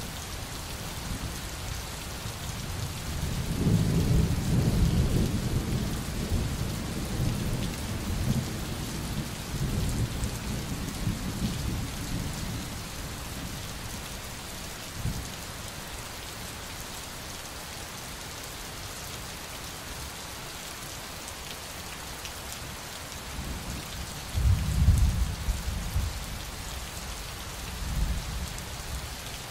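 Steady rain hiss with rolling thunder: a long low rumble builds a few seconds in and dies away by about twelve seconds, and shorter rumbles come near the end.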